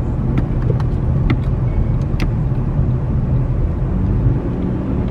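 Car driving on the road, heard from inside the cabin: a steady low engine and road rumble, with a few faint clicks.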